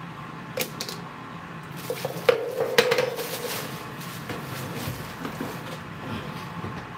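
Dishes and cutlery clinking: a few light clicks, then two sharp clinks about half a second apart, followed by a brief ringing. A GoWISE air fryer hums steadily underneath as it runs.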